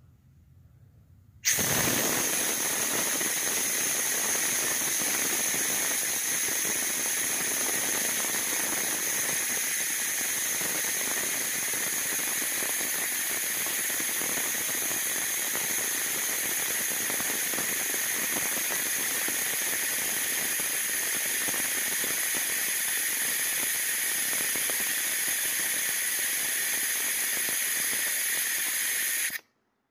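Compressed air hissing steadily through a venturi-type cooling-system vacuum refill tool as it draws a vacuum on the car's cooling system before refilling. The loud hiss, with faint high whistling tones in it, starts suddenly about a second and a half in and cuts off just before the end.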